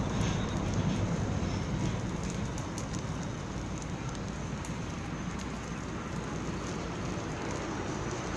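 Small open fire of dry leaves crackling, with frequent sharp pops over a steady hiss.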